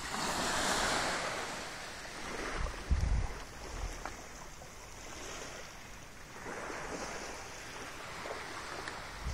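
Small waves breaking and washing up a sandy shore, swelling twice, with a short low thump on the microphone about three seconds in.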